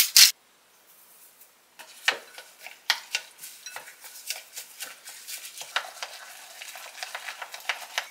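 A pepper grinder cranking for a moment at the start, then wooden chopsticks stirring and beating a runny egg batter in a glass mixing bowl, with quick irregular taps of the sticks against the glass.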